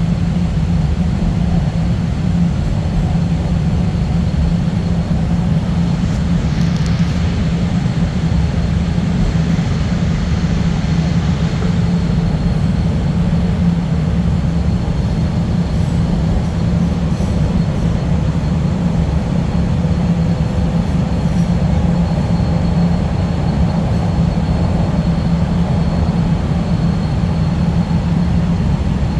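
Chicago CTA Blue Line subway train running through the tunnel between stations, a steady loud rumble of wheels and motors heard from inside the car.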